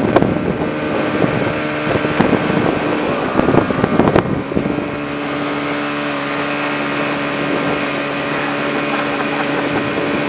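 Motorboat engine running steadily at towing speed, with rushing water and wind buffeting the microphone. A few sharp knocks come in the first half, then the engine hum evens out from about halfway.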